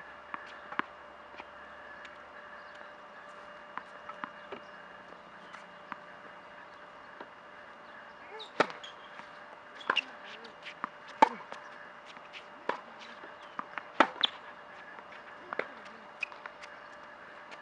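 Tennis serve and rally on an outdoor hard court: sharp racket-on-ball hits and ball bounces, one about every one and a half seconds, starting a little past halfway. Before the serve, a few light ball bounces.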